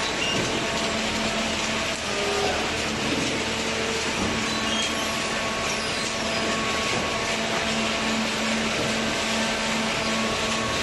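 Automatic waste paper baler running: a steady machine noise with a faint constant hum.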